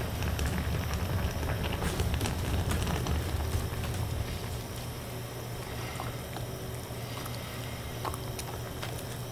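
Portable gas stove burner running under a pot of simmering salmon heads: a steady low rumble with scattered light bubbling ticks, louder for the first few seconds.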